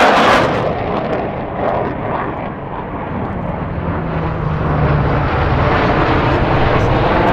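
A jet's roar fades away in the first second. Then the steady drone of a Lockheed C-130H Hercules's four turboprop engines builds as the transport flies overhead, louder toward the end.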